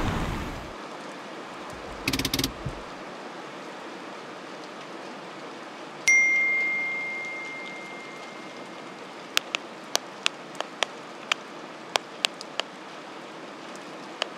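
Music fades out, then a quiet hiss. About six seconds in a single bell-like ding rings out and slowly fades over a few seconds, followed by a scatter of light, irregular ticks.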